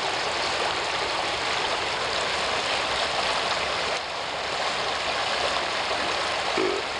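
The Boise River rushing past in a steady, even flow. A brief low sound comes near the end.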